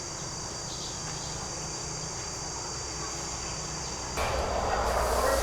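Insects chirring in a steady, high-pitched chorus. About four seconds in, a louder rustling noise with a low rumble joins.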